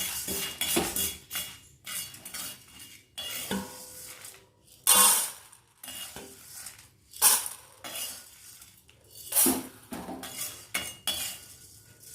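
A spoon stirring and scraping dry-roasted lentils, spices and dried red chillies around a kadai, with several louder scrapes against the pan as the mix is scooped out.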